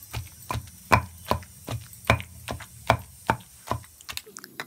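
Pestle pounding wet chutney paste with chopped onion in a stone mortar. Steady thuds about two and a half times a second, stopping shortly before the end.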